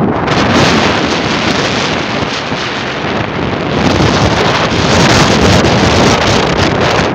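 Loud wind blowing across the microphone of a camera on a moving vehicle, a steady rushing that grows louder about four seconds in.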